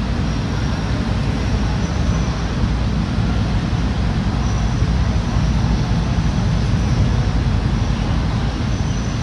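Steady low rumble of a diesel locomotive moving slowly up the platform track toward the train it will couple to.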